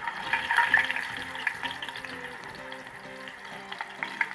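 Raw banana slices sizzling in hot refined oil as they drop from the slicer into the kadai. The sizzle starts suddenly and is loudest in the first second, with a few short clicks from the slicing, over background music.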